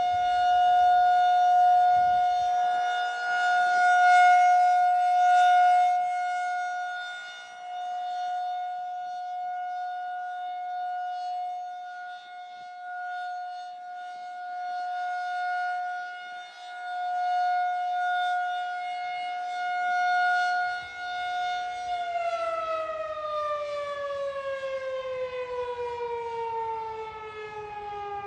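Federal Signal 2001-SRN rotating outdoor warning siren sounding a steady tone, its loudness swelling and fading as the horn turns. About three-quarters of the way through, the pitch starts to fall as the siren winds down at the end of the test signal.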